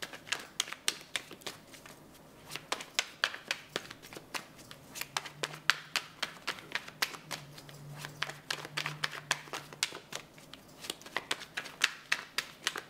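A deck of tarot cards being shuffled hand to hand: quick, irregular clicks and slaps of cards falling against each other, with a short pause about two seconds in.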